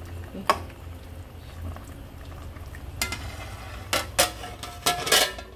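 A steel spoon stirring thick pork vindaloo in an aluminium pressure cooker, with a sharp click about half a second in. From about three seconds in, the cooker's aluminium lid clanks against the pot several times, each clank ringing briefly, over a low steady hum.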